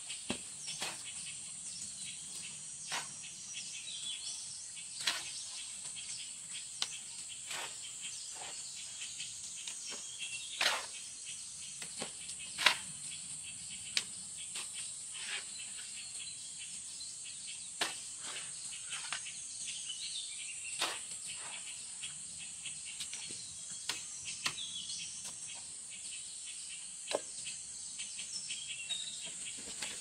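Steady high-pitched insect chorus, with irregular sharp knocks scattered through it; the loudest knock comes about twelve seconds in.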